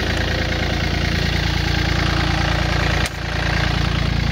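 Yanmar F215D compact tractor's three-cylinder diesel idling steadily in neutral, the engine hot. A sharp click about three seconds in briefly cuts into the sound.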